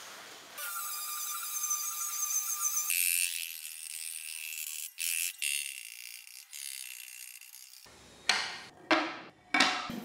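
Woodworking tool sounds in quick cuts: a machine's steady whine for about two seconds, then a thin high hiss, then three sharp knocks near the end, each trailing off.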